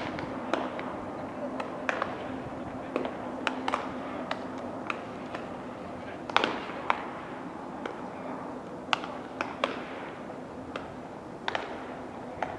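Baseballs smacking into leather gloves as players play catch during warm-up: a scatter of sharp pops at irregular intervals, about one or two a second, some louder and closer than others.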